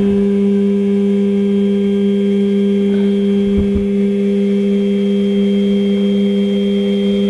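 X-axis stepper motor of a CNC-converted Grizzly G8689Z X2 mini mill driving the table along its leadscrew at a constant jog speed. It makes a loud, steady whine of several tones that does not change in pitch.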